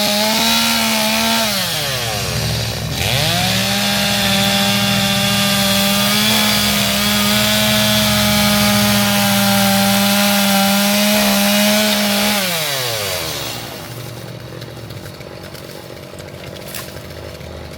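Gasoline chainsaw running at full throttle. Its revs dip and climb back about two or three seconds in, hold high until about twelve seconds in, then fall away as the throttle is released, and the saw idles more quietly to the end.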